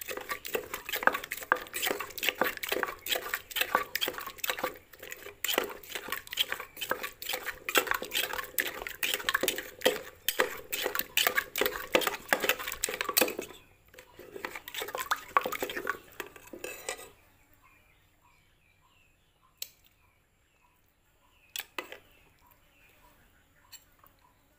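A pestle and a metal spoon knock and scrape rapidly against a mortar as the chilli, garlic, palm sugar, fish sauce and lime dressing is mixed together. The clatter runs densely, pauses, comes back briefly, then stops a little past halfway, leaving only a few single knocks.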